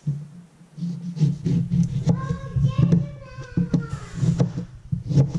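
A young child singing and vocalising, with the sharp knocks of a chef's knife cutting a lemon against a plastic cutting board.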